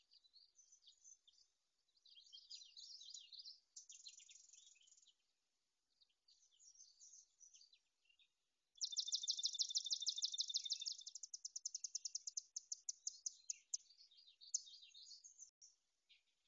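Small songbirds singing in a marsh: short high chirping phrases, then about nine seconds in a long rapid trill that slows into separate notes over some five seconds.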